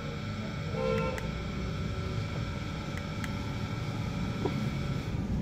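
Steady low background rumble with a few light clicks from the keys of a Jio F30C keypad phone being pressed.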